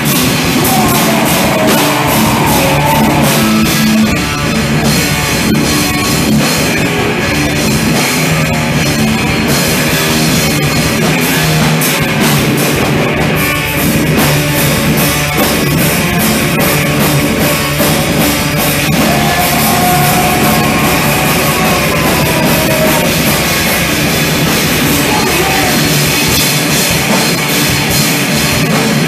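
Heavy rock/metal music: an electric guitar played along with drums, with a few bending lead lines about two seconds in and again around twenty seconds in.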